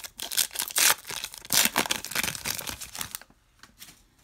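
Foil trading-card pack wrapper being torn open and crinkled by hand, a dense run of rips and crackles that stops about three seconds in.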